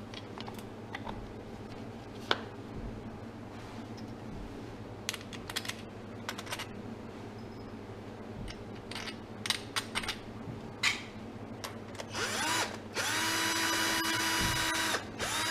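Small parts clicking and knocking as a refrigerator fan assembly is put back together, then about twelve seconds in a power screwdriver spins up with a rising whine, runs steadily for about two seconds driving a screw, stops, and starts again near the end.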